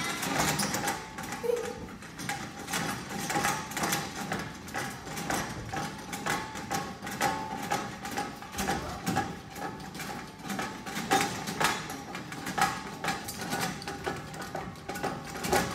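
Rapid, continuous knocking and clattering on an indoor play structure, several knocks a second, with a steady high hum underneath.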